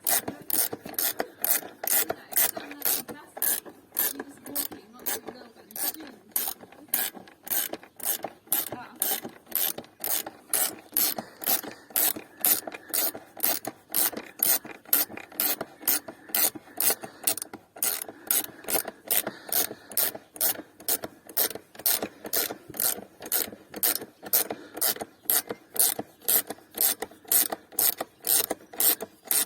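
A ratchet wrench clicks at a steady rate of about two to three strokes a second while a motorcycle's front wheel spindle is wound out of the fork leg. A faint scraping rub from the turning spindle runs underneath the clicks.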